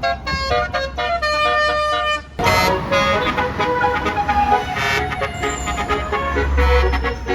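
Bus telolet horn: a multi-trumpet musical air horn playing a stepping melody of short notes, then from about two seconds in sounding a loud sustained chord of horn tones, over a low engine rumble that swells near the end.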